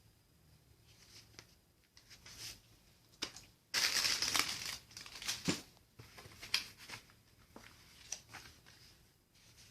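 Monitor packaging being handled: irregular crinkling and rustling with a few sharp clicks, loudest in a burst about four seconds in.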